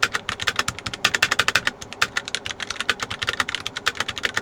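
Rapid typing on a Redragon K656 mechanical keyboard fitted with purple tactile box switches: a dense, steady run of sharp keystroke clicks.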